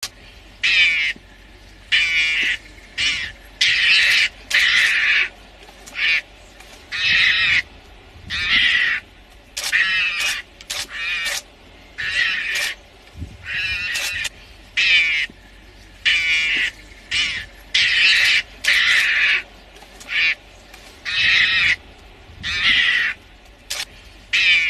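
A mongoose calling in short, high-pitched bursts repeated every second or so, the defensive threat calls of a mongoose squaring up to lions.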